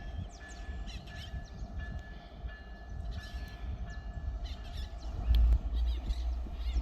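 Low steady rumble of a freight train, swelling about five seconds in, with birds chirping repeatedly over it.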